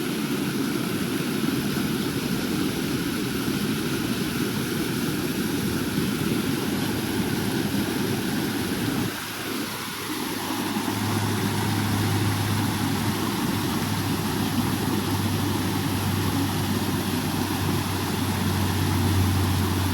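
Steady rush of creek water pouring over small waterfalls into a pool. About halfway through, a low steady rumble joins in.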